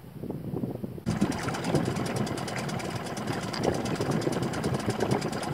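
Small sailboat's motor running under way at low speed, a fast, even chugging that comes in suddenly and loud about a second in.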